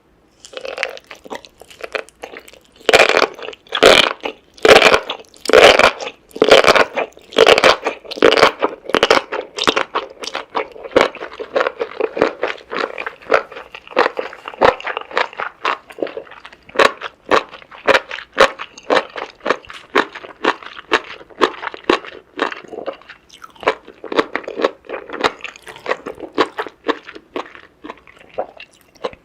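Close-miked chewing and crunching of seafood: a run of loud, crisp bites and chews for the first several seconds, then quieter, quicker chewing.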